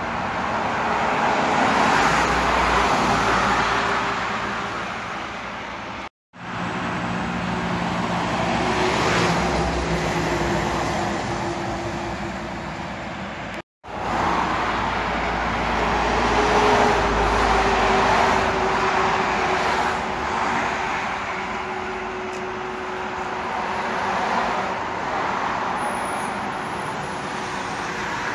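Highway traffic heard from above: heavy vehicles, a bus and then a lorry, passing below, their tyre and engine noise swelling and fading with a low engine rumble under it. The sound drops out completely twice, very briefly, about six and fourteen seconds in.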